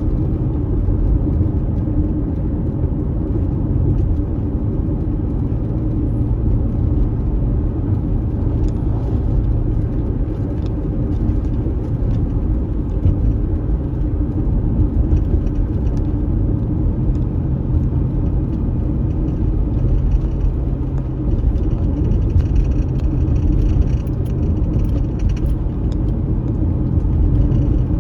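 Car driving on a dusty unpaved road: a steady low rumble of engine and tyres, with a few faint ticks on top.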